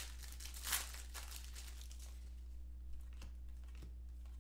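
Foil wrapper of a football trading-card pack crinkling and tearing as the pack is opened and the cards slid out, loudest in the first second, then a few light clicks of the card stack being handled. A steady low electrical hum runs underneath.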